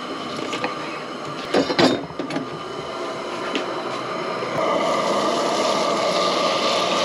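Garlic sizzling in oil in a skillet, with a few knocks against the pan about one and a half to two seconds in. The sizzle grows louder about halfway through.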